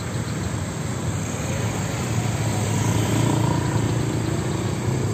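Motorcycle engines running at low speed as several motorbikes pass slowly in traffic, one growing louder about three seconds in.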